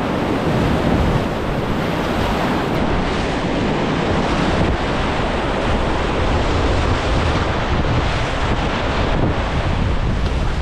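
Whitewater rapids rushing steadily, with wind and water buffeting the microphone of a camera worn on a kayaker's life jacket.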